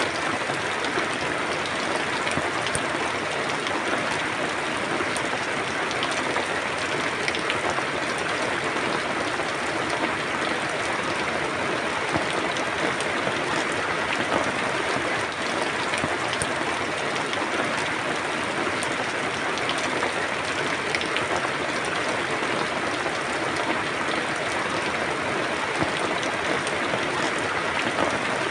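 Steady rain falling, a dense even hiss with many small drop patters on a surface.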